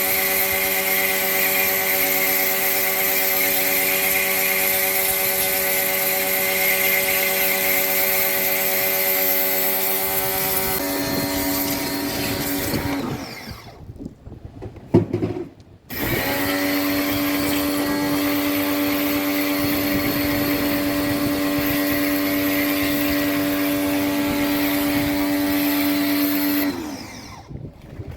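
An electric motor-driven tool running steadily with a whine. It is switched off about halfway through and winds down, falling in pitch, then starts up again a couple of seconds later. Near the end it is switched off once more and restarted.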